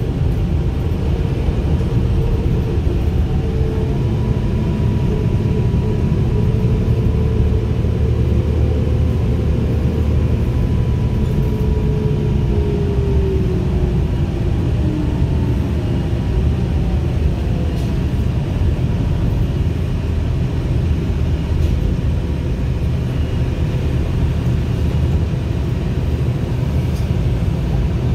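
Inside a New Flyer D35LFR diesel city bus on the move: steady low engine and road rumble. A faint whine comes in a few seconds in and drops in pitch about halfway through.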